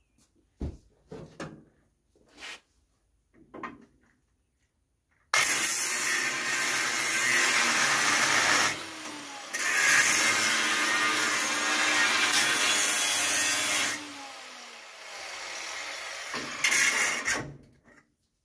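Angle grinder working the sheet-steel front body of an International Scout 800: a few knocks, then about five seconds in the grinder bites in loudly. It winds down briefly near nine seconds with a falling whine, starts again, and winds down once more around fourteen seconds. It runs lighter for a while, then gives a last loud burst before stopping.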